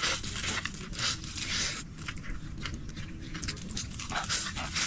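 Someone eating fried rice noodles from a bowl: irregular slurping and chewing noises with the occasional scrape of a utensil.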